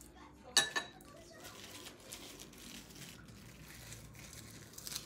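Two sharp clinks in quick succession just after the start, then low background noise with a lighter click near the end.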